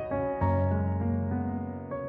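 Background music: a gentle classical-style piano piece, with notes changing every few tenths of a second and a low bass note coming in about half a second in.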